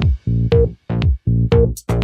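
Electronic dance music with a steady pulsing beat, about three pulses a second; high hi-hat ticks join in near the end.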